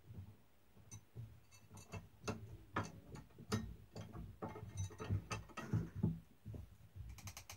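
Irregular small metallic clicks and ticks of screws being backed out with a screwdriver and a side plate being worked loose on a replica championship belt, with a quick run of clicks just before the end.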